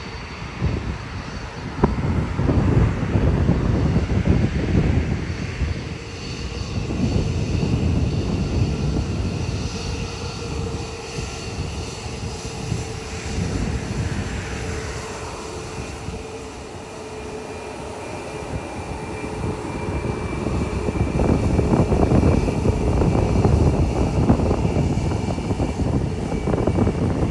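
Jet airliner's engines on a landing approach: a steady whine over a low rumble that swells, fades and swells again.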